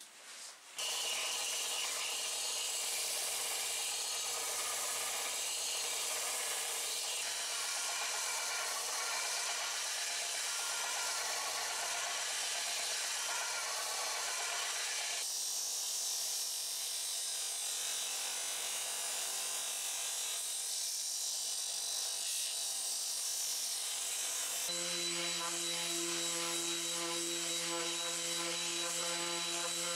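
Electric sanders working wood. A bench belt sander grinds a pine block with a steady rasping run. After a change about 15 s in, a random orbital sander runs in the last few seconds with a steady motor hum under the sanding.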